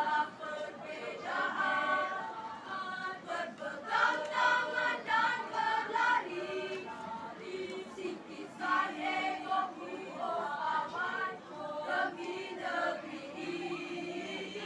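A junior high school choir singing a song together in several voice parts.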